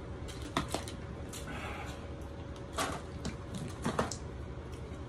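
Thin plastic takeaway noodle container handled while the last of the sesame sauce is drunk from it: scattered sharp clicks and crackles, the strongest about three and four seconds in, over a steady low hum.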